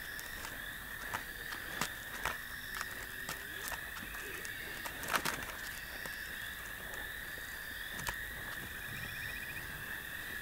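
Night insect chorus: a steady, high, even chirring of crickets, with scattered sharp clicks and crackles. The loudest clicks come in a short cluster about five seconds in.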